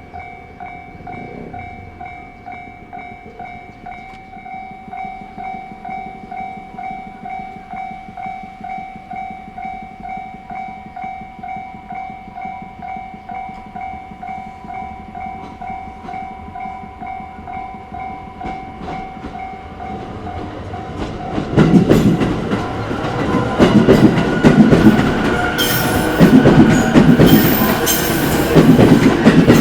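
Japanese railway level-crossing alarm ringing a rapid, steady ding-ding. About two-thirds of the way in a JR Sobu Main Line train arrives and passes loudly, its wheels clattering over the rail joints and drowning out the bell.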